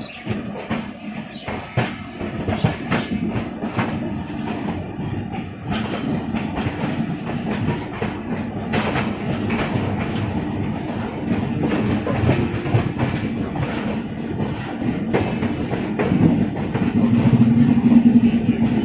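Passenger train wheels clattering over rail joints and points, an irregular run of sharp clicks over a steady rumble, heard close from the open door of a moving coach. A steady low hum grows louder over the last few seconds.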